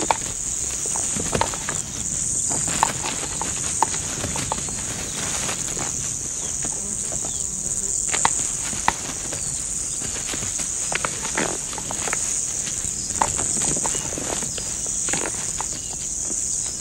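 Two topi bulls fighting: irregular sharp knocks and clacks of horns clashing and hooves striking the ground. Under them runs a steady high chorus of insects.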